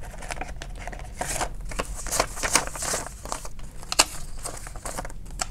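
Crinkling of a clear plastic binder cash envelope and rustling of paper bills being pulled out and leafed through by hand, with a sharp click about four seconds in.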